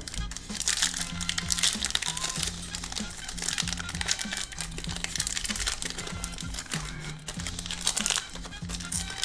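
Foil trading card pack wrappers crinkling and tearing as the packs are ripped open, in several bursts, over background music with a steady bass line.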